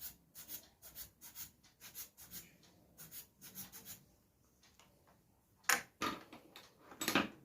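Hand-pressed air blower pump puffing short bursts of air over a laptop CPU's pins to clear dust: faint puffs two or three a second for about four seconds, then two louder bursts near the end.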